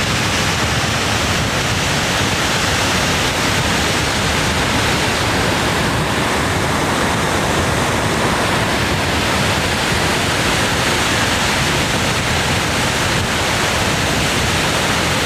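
Tumalo Falls, a plunge waterfall on Tumalo Creek, making a loud, steady rushing roar of falling water with no change or break.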